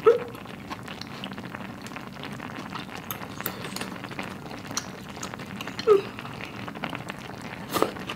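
Close-up eating sounds: chewing of spicy rice cakes and noodles, with small wet clicks. Under it runs the steady bubbling of the stew still simmering on the tabletop burner. Three short louder sounds come just after the start, about six seconds in and near the end.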